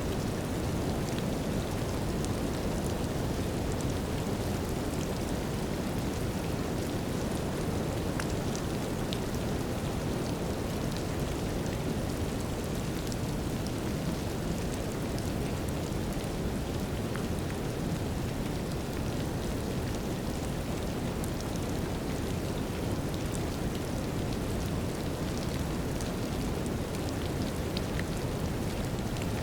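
Steady deep rushing brown noise mixed with a light rain drizzle, faint raindrops ticking over it.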